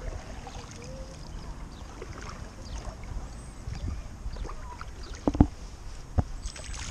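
Paddle strokes on a stand-up paddleboard: the blade dipping and splashing in calm river water, over a steady low rumble. A couple of sharp knocks come about five and six seconds in.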